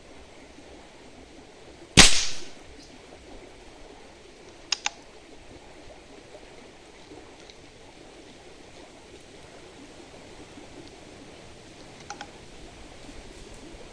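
A .22 PCP air rifle, charged to about 170 bar, firing one shot about two seconds in: a single sharp crack with a short tail. A quick pair of sharp clicks follows about three seconds later, and fainter clicks come near the end.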